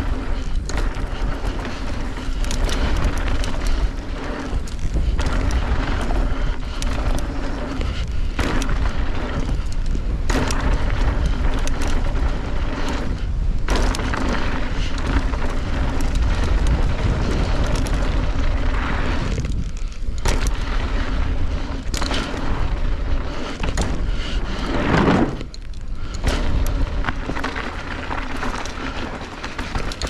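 Mountain bike descending a rough dirt and rock trail: heavy wind rumble on the camera microphone, with the tyres crunching over dirt and rocks and the bike rattling and knocking over bumps. A short rising tone about 25 seconds in.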